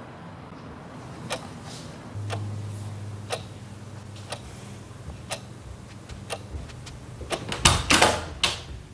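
Clock ticking about once a second over a steady low hum. Near the end comes a louder, quick cluster of knocks and rattling.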